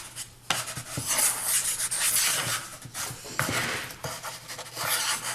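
Hands rubbing and pressing a slab of damp firework star composition, a dry scraping rub in two long strokes.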